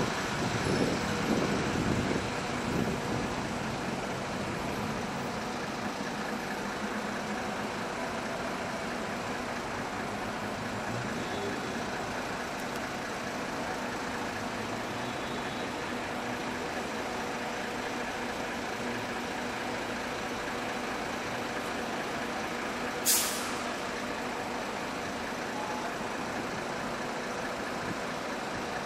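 Street traffic with trucks and vans idling in a steady hum, louder and rumbling for the first couple of seconds. Near the end, one short sharp hiss of a truck's air brake.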